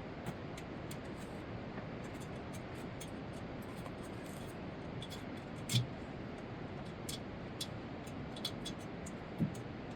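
Light scattered clicks and two short knocks, about six and nine and a half seconds in, over a steady low hiss.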